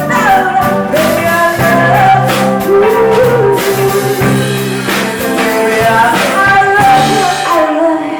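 Live band playing a slow soul number: drum kit, bass and guitar under a gliding lead melody line.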